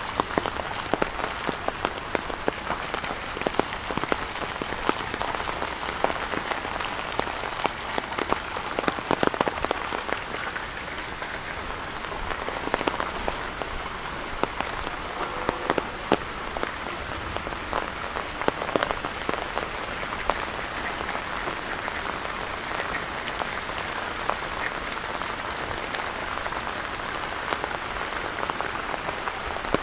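Steady rain falling close to the microphone, a constant hiss with many sharp individual drop hits.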